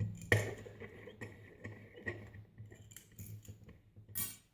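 A brass padlock being clamped up for picking: a sharp metallic click, with a faint ringing tone for about two seconds after it, then a run of small clicks and taps from handling the lock and clamp, and a short scrape near the end.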